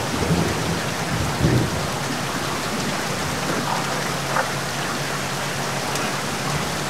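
Heavy rain falling in a steady, dense hiss on water, pavement and the boat, with a brief low rumble about a second and a half in.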